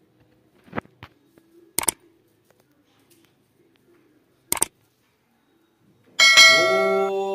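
A few sharp metallic clinks, then about six seconds in a loud ringing tone starts and holds steady, its pitch sliding up briefly at the start: a ritual sound instrument in a home puja.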